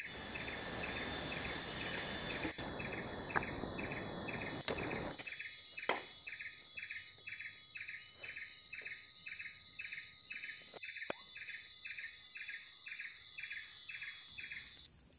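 Insect chorus: a steady high-pitched drone with a short chirp repeating about twice a second. A rushing noise underneath drops away about five seconds in, and the drone cuts off near the end.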